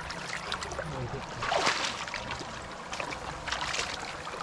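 Shallow running water trickling among stones, with two louder splashes, about a second and a half in and again near the end.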